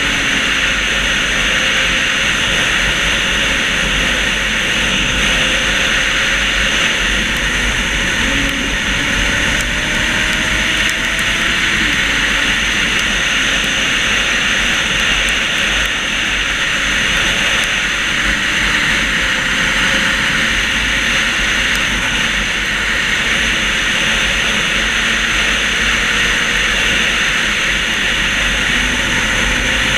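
Steady wind rush over a helmet-mounted camera on a moving motorcycle, with the motorcycle's engine faintly underneath, its pitch rising and falling gently as the rider changes speed.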